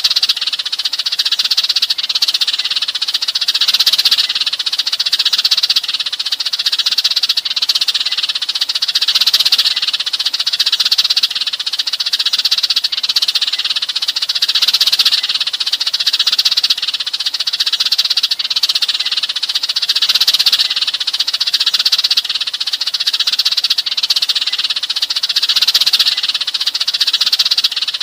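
A flock of sparrows chattering and chirping continuously, a dense high-pitched chorus, used as a flock call to draw sparrows in.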